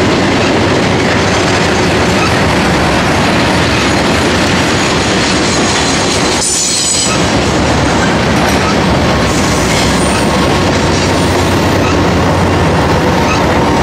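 Intermodal freight train of trailers on flatcars rolling past: a loud, steady rumble and clatter of steel wheels on rail, with a brief high wheel squeal about six and a half seconds in.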